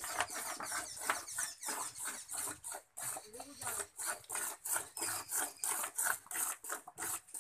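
A cow being milked by hand: quick squirts of milk hissing into a metal pail in a steady rhythm, about four a second.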